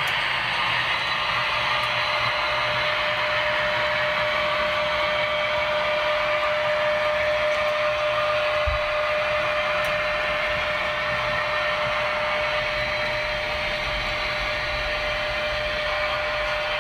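H0-scale model electric locomotive running on the layout: a steady motor whir with a constant even-pitched tone.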